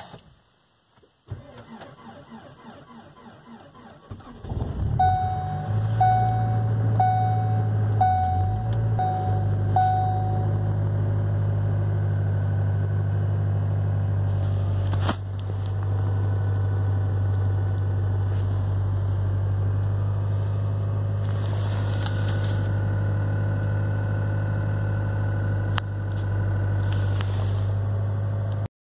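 2016 Ford Focus ST's 2.0-litre turbocharged four-cylinder cranking for about three seconds in −24°F cold, then catching and settling into a steady fast idle, heard from inside the cabin. A chime sounds six times, about once a second, just after the engine fires.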